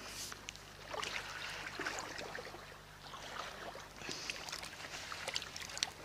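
Faint river water lapping and trickling at the bank, stirred up by a passing boat's wash, with small irregular splashes and a low steady hum underneath.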